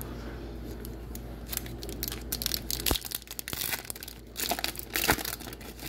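Foil wrapper of an Upper Deck MVP hockey card pack being torn open and crinkled by hand: a rapid run of sharp crackles starting about a second and a half in and easing off near the end.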